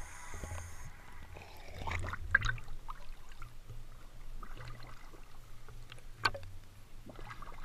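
Small waves sloshing and lapping against a camera held at the water's surface, with a low muffled rumble. There are sharp splashes about two seconds in and again a little after six seconds.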